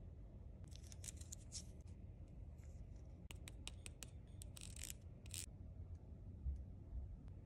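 Long fingernails tapping, clicking and scratching on small hard-plastic miniature toy accessories. There are scratchy rustles about a second in, a run of sharp clicks past three seconds as a tiny toy laptop's keys are tapped, and more scratching near five seconds.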